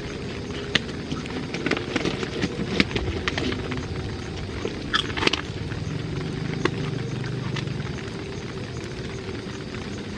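Rain falling on a tent: a steady hiss with louder single drops tapping sharply on the fabric, most of them in the first two-thirds.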